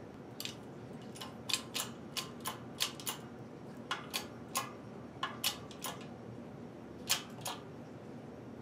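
Irregular sharp metallic clicks, about eighteen of them, some close together in pairs, as a shop press is worked to push a bearing down into its bore through an aluminium sleeve.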